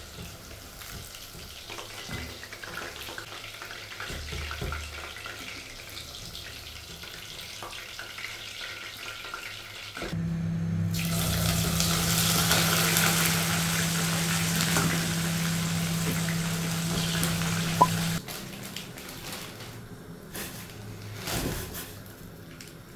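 Chicken pieces sizzling as they fry in oil in a stainless steel pot, turned with a slotted spoon. About ten seconds in, the sizzle grows louder for about eight seconds over a steady low hum, then drops back.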